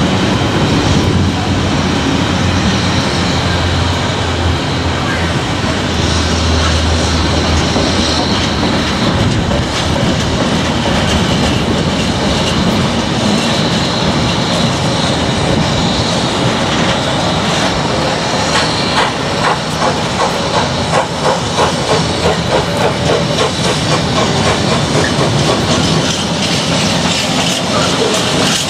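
GWR 57xx class pannier tank steam locomotive working a train at low speed, with a steady hiss of steam. Past the middle a run of even, rhythmic beats comes through.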